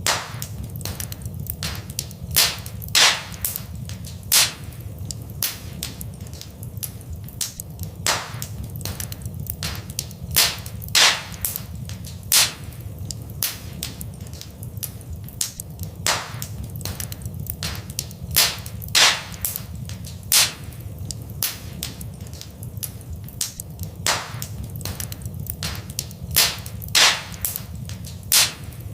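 Wood fire in a fireplace crackling, with many sharp pops and snaps over a steady low rumble. The loudest pops come in pairs, and the pattern repeats about every eight seconds, as a looped recording does.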